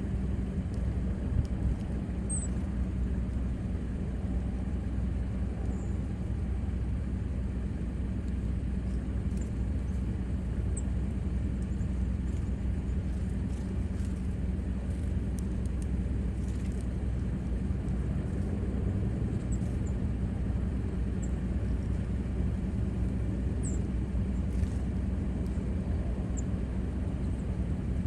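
Steady low rumble with a constant hum, over which a few faint, brief high chirps of small birds come and go.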